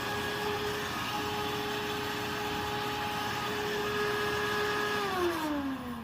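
Old Eureka Whirlwind upright vacuum cleaner's motor running with a steady whine, pretty loud, then switched off about five seconds in and winding down with falling pitch. The motor runs, so it is not dead.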